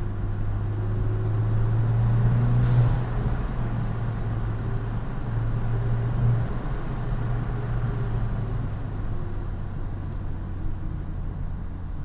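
Audi A3 engine and exhaust under way at highway speed: a steady low drone that builds as the car accelerates, broken by two short sharp cracks about three and six and a half seconds in, each followed by a drop in the engine note, then settling to a steadier, quieter drone as the car eases off.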